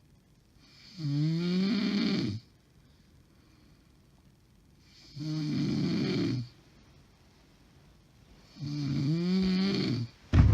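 A woman snoring heavily in her sleep, the uploader believes from sleep apnea: three long, pitched snores about three and a half seconds apart, each rising in pitch, with quiet breathing between. A sudden loud noise comes at the very end.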